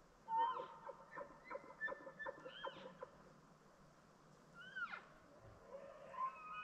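Bull elk bugling in the rut. A call climbs into a whistle and breaks into a run of quick chuckles, about four or five a second. Then a second high whistle rises and slides steeply down near the end.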